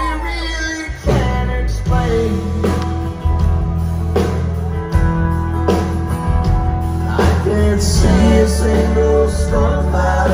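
Live country band playing loud, amplified: drums, electric bass, acoustic guitar and keyboards. The full band comes in with a drum hit about a second in and keeps a steady beat.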